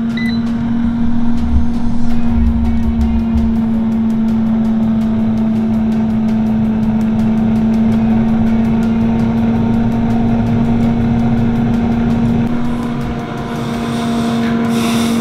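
Instant Vortex Plus air fryer running on air fry with its rotisserie turning: a steady hum from the fan, with a fast, even ticking over it that stops about twelve seconds in.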